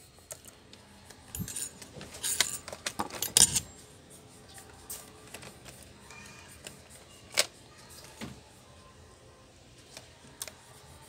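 Plastic clicks and clatter of a Lenovo Y460 laptop keyboard being pried up from its frame with a thin metal tool, with a burst of rattling clicks about two to three and a half seconds in and a single sharp click about seven seconds in.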